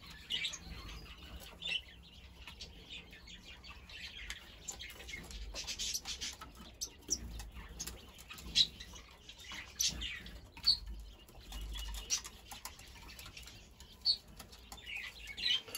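Zebra dove chick fluttering its wings in a cupped hand, with short high falling chirps every second or two.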